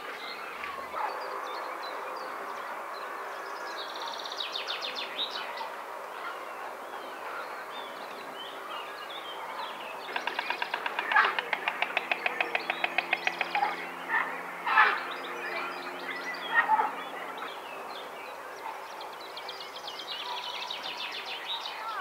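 Songbirds singing in a continuous woodland chorus, broken about ten seconds in by a rapid, evenly paced wooden clattering lasting some three and a half seconds, white stork bill clattering, followed by a few single sharp knocks. A faint low steady drone sits underneath for much of the time.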